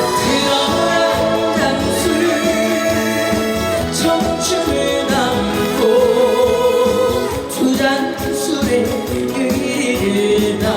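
Korean trot song performed live: a singer's voice holding wavering notes over instrumental accompaniment.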